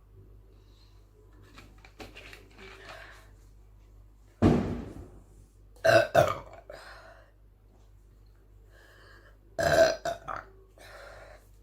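A person burping after drinking mixed soda. One long burp comes about four seconds in, two short ones follow a couple of seconds later, and a cluster of short burps comes near the end, with fainter sounds between them.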